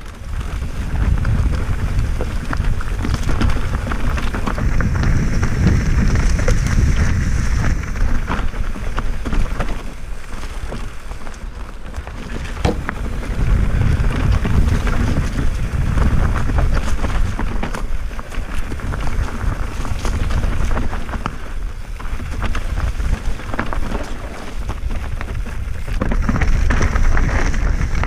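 Mountain bike running fast down a rough forest singletrack: wind rumbling on the bike-mounted or helmet camera's microphone, with tyres crunching over dirt and stones and the chain and frame rattling in quick clicks and knocks. The rumble swells and dips as the speed changes.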